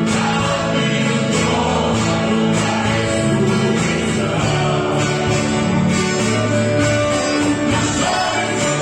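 Two male voices singing a gospel hymn together over instrumental accompaniment.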